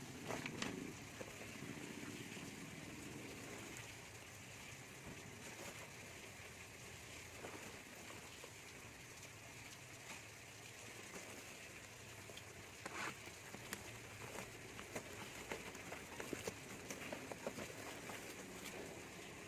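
Faint handling of shrink-wrapped cardboard biscuit boxes, with a few light taps about two-thirds of the way in and small crinkles of plastic wrap near the end, over a steady low hiss.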